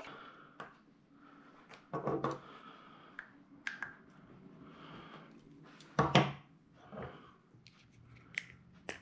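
Small parts and tools being handled on a workbench: scattered light clicks and clinks, with louder knocks about two seconds in and again about six seconds in.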